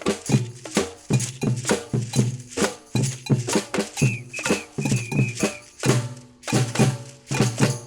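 Batucada, Brazilian samba percussion: deep drums beat a steady rhythm with sharper hand-percussion hits between the strokes. A few short high piping tones come in about halfway through.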